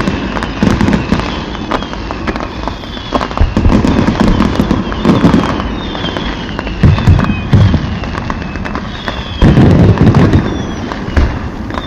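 Fireworks display: a rapid stream of crackling pops with heavier booms every second or two, and short high whistles falling in pitch.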